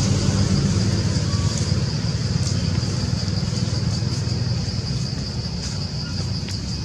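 A steady low rumble, with a steady high-pitched buzz of insects above it.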